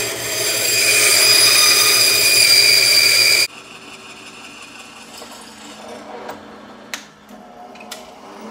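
Bandsaw cutting through a metal bar: a loud, steady rasp with high ringing tones that stops abruptly about three and a half seconds in. Then a quieter drill press runs with a steady hum and a few sharp clicks as a bolt hole is drilled in the bar.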